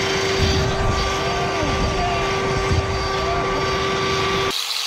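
A steady, even hum from a small motor over heavy wind rumble on the microphone, cutting off abruptly shortly before the end.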